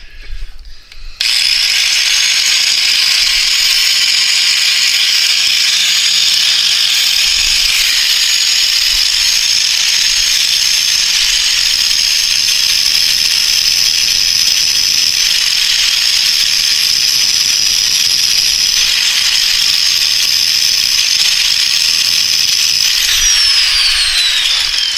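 Power grinder running and grinding the riveted head off a steel motorcycle chain's link pin, a steady high whine over a grinding hiss. It starts about a second in and winds down near the end, its pitch falling.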